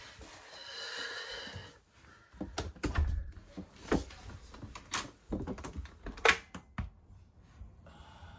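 Front door's lock and latch clicking and clunking as the door is unlocked and opened: a string of sharp clicks and knocks, the loudest about six seconds in.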